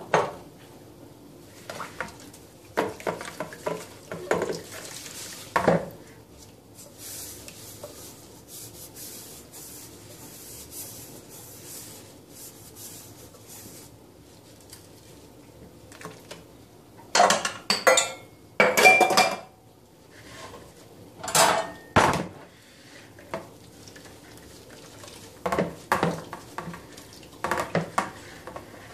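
A stainless steel teapot and a wire metal part clanking and knocking against each other and a plastic bowl of soapy water as they are washed by hand. The loudest clatters come in the second half, and a softer steady washing noise runs for several seconds in the middle.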